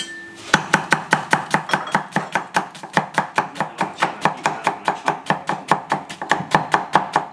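Chinese cleaver julienning slices of green vegetable on a thick wooden chopping block: rapid, even knocks of the blade on the wood, about five or six a second, starting about half a second in.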